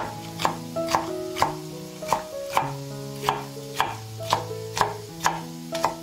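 Knife chopping on a cutting board, about two cuts a second, over background music.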